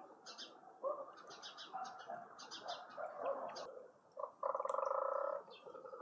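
Several birds calling: quick high chirps and twitters throughout, and about two-thirds of the way in a loud, buzzy, rapidly pulsed call lasting about a second.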